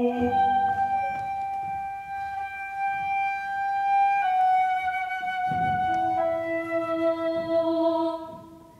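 Concert flute playing long held notes, each step a little lower than the last. A lower held tone joins in about six seconds in, and the sound fades away near the end.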